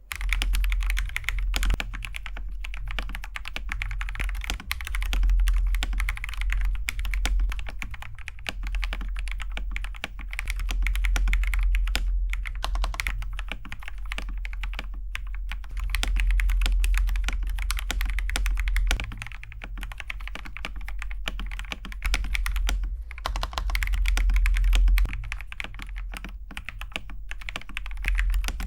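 Continuous fast typing on a TM680 mechanical keyboard fitted with Akko Jelly Pink linear switches: a dense, uneven patter of keystrokes with a few brief pauses.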